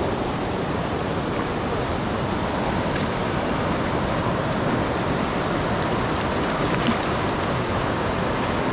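Mountain trout creek running high and fast over a rocky bed: a steady rush of water.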